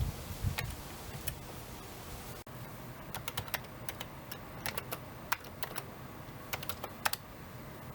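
Typing on a keyboard: irregular clicking keystrokes, some in quick runs, over a steady hiss.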